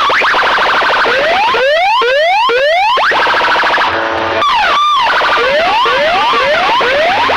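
Electronic siren and alarm effects played very loud through a DJ sound system: repeated rising sweeps alternating with fast, chirping warbles.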